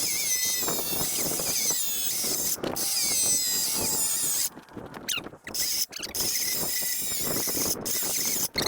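Battery-powered 9-inch cut-off saw running with a high-pitched whine as its blade cuts into a foam-filled rubber tire, the pitch sagging under load. It cuts out briefly a few times about halfway through.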